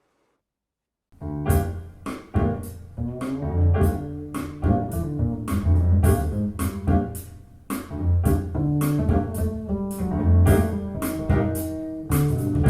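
Jazz-style music with piano and bass over a steady beat, played back through a pair of JBL Studio 590 floor-standing speakers with compression horn tweeters. The music starts about a second in, after near silence.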